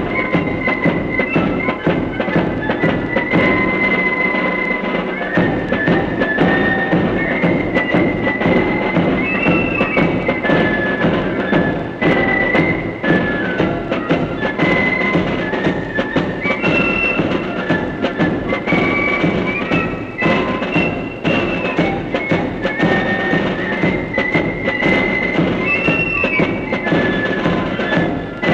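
Military corps of drums playing a march: high flutes carry the melody over steady rattling side drums and bass drum beats.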